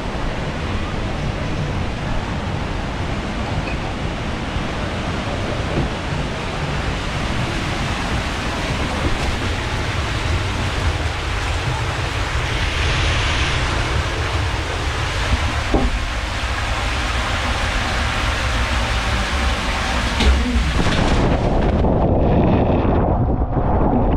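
Steady rushing, hissing noise inside a trapdoor water slide's launch capsule. About twenty seconds in there is a thump as the trapdoor drops, then water rushing through the enclosed slide tube, duller and rougher, as the rider slides down.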